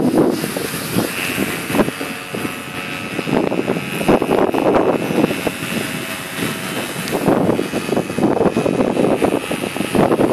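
Paramotor engine and propeller droning overhead, as a faint steady whine under loud, uneven gusts of wind noise on the microphone.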